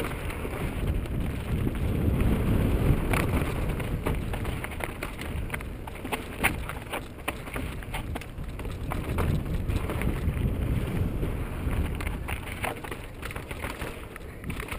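Wind buffeting the microphone while a mountain bike rolls down a rocky trail, with frequent clicks and knocks from the bike clattering over rock and gravel. The wind rumble swells and eases as speed changes.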